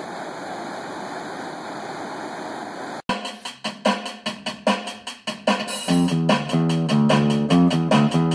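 About three seconds of steady hiss-like noise, then an abrupt cut into rock-style intro music: a drum beat of snare, bass drum and hi-hat, joined about six seconds in by bass and electric guitar.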